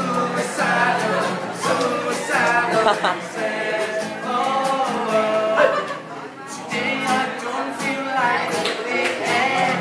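Acoustic guitar strummed live with a voice singing along, a brief lull about six seconds in.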